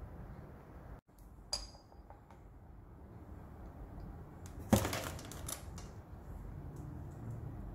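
Kitchenware handled by hand: a single light clink about a second and a half in, then a quick run of metallic clicks and rattles a little past halfway, the loudest sound, as the stainless steel folding steamer basket is picked up.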